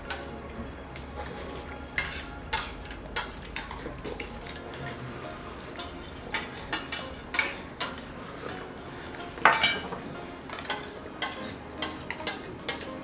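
Steel spoons clinking and scraping against small stainless steel plates as two people scoop and eat quickly: irregular clinks, the loudest about nine and a half seconds in.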